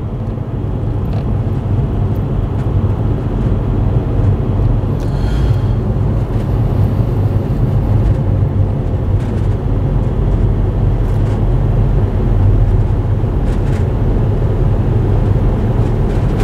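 Car driving, heard from inside the cabin: a steady low rumble of engine and tyre noise, with a few brief knocks.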